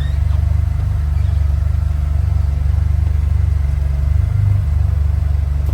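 Volkswagen Jetta GLI's 2.0 turbocharged four-cylinder engine idling steadily at normal idle, a loud, even low rumble.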